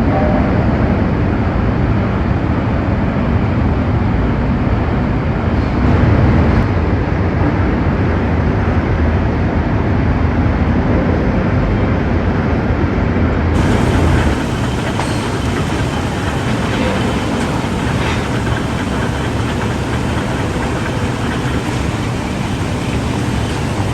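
Loud, steady rumble of heavy steel-mill machinery. Partway through it cuts to a thinner, hissier steady noise.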